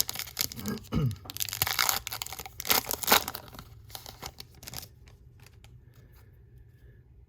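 Plastic wrapper of a trading card pack being torn open and crinkled in a run of crackling bursts, loudest about three seconds in, dying down to a few faint ticks of card handling after about five seconds.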